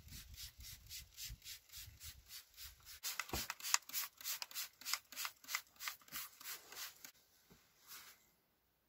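Hand trigger spray bottle of engine cleaner squeezed rapidly onto a greasy engine, a short hiss with each squeeze at about four a second, stopping near the end.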